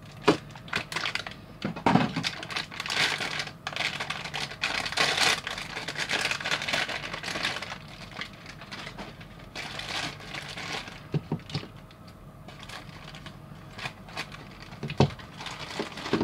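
Clear plastic bags crinkling as they are handled and pulled open, most steadily in the first half. Sharp clicks and taps of small plastic parts come now and then, the loudest just after the start and about fifteen seconds in.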